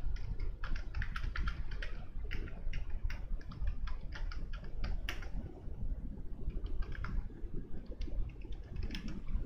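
Computer keyboard typing: quick runs of keystrokes, with one louder key press about five seconds in, a short pause, then more typing.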